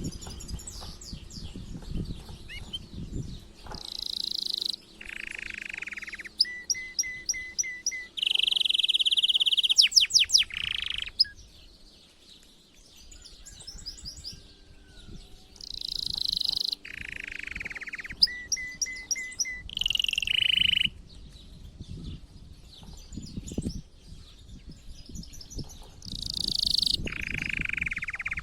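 Male domestic canary singing an excited breeding-season song. It is a run of quick trills and rolls, each phrase about a second long, with the pitch jumping from one phrase to the next and a short lull partway through.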